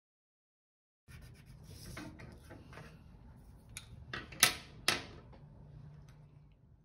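Two sharp clicks about half a second apart as colored pencils are set down on a tabletop, after a faint rustle of handling. The first second is dead silence.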